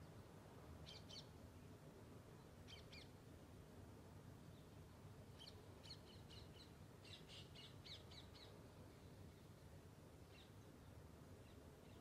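Faint, high bird chirps: short pairs about one and three seconds in, a quick run of about ten chirps in the middle, and one more near the end, over a low steady hum.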